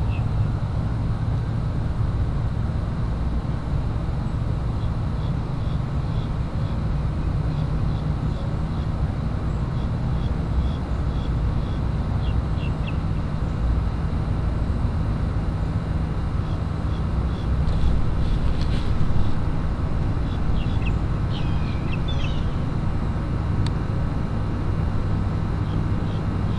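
Steady low outdoor rumble with a faint hum, with small bird chirps now and then above it. The rumble swells briefly a little past halfway.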